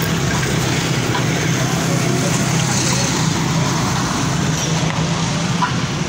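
A steady low mechanical hum over constant street and yard noise.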